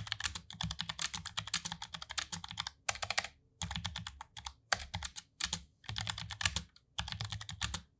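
Fast typing on a Tecware Phantom L low-profile mechanical keyboard with Outemu brown tactile switches: quick runs of key clacks broken by brief pauses.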